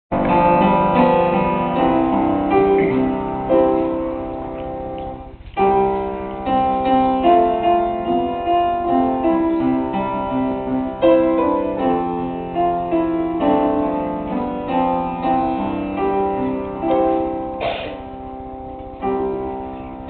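Piano being played, notes struck and left to ring, with a brief break about five and a half seconds in.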